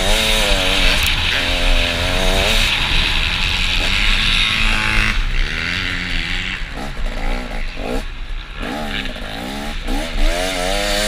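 Motocross bike engine revving on a track ride, its pitch climbing and dropping again and again with the throttle and gear changes, over a steady rush of wind and track noise. About halfway through the revs ease off briefly, then build up again.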